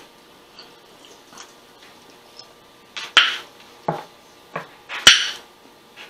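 Eating sounds: after a quiet start, a few short, sharp crunching and smacking noises of chewing, the loudest about three and five seconds in.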